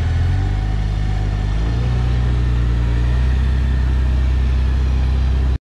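Jeep Cherokee XJ's engine running steadily at low revs. The note shifts and settles about a second and a half in, and the sound cuts off suddenly near the end.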